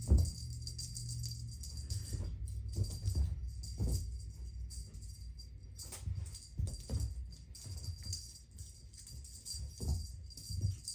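Background music with a jingling, rattling percussion sound and scattered short knocks.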